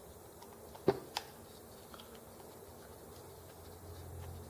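Two light clicks, about a third of a second apart, as small parts of a model engine are handled, over a faint low hum.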